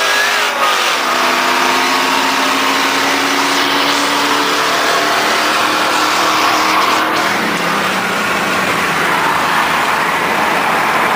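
V8 pickup truck engine pulling hard under full throttle during a drag race. Its pitch climbs steadily and drops sharply at the gear upshifts, about half a second in and again near seven and a half seconds.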